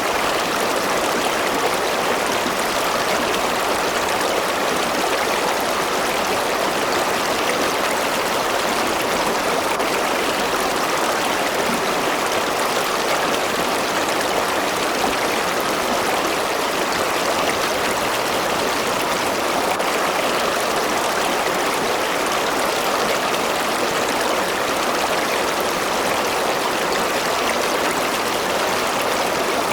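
A river or stream rushing steadily over rocks: a constant, even wash of flowing water with no change in its level.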